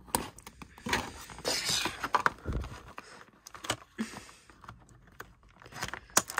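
Scissors snipping the ties that hold a doll in its box, with scattered sharp clicks and rustling of the cardboard and plastic packaging, including a longer rustle about a second and a half in.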